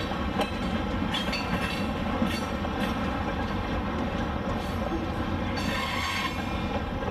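HO-scale model passenger train rolling past on the layout: a steady running rumble with occasional clicks of the wheels over the rail joints.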